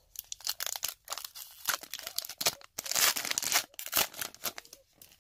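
Foil trading-card pack wrapper crinkling and being torn open by hand, with the loudest tearing about three seconds in.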